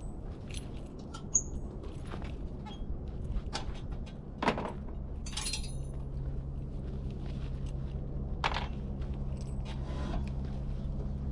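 Scattered clicks, knocks and a ringing metallic clink as gear is handled at the back of a pickup truck, over a steady low hum.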